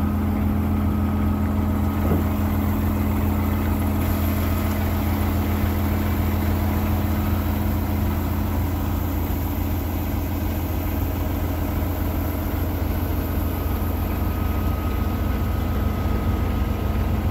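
Paccar MX13 diesel engine of a Peterbilt 389 truck tractor idling steadily.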